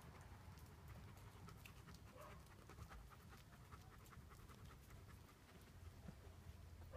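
Faint, rapid panting of a Caucasian Shepherd dog.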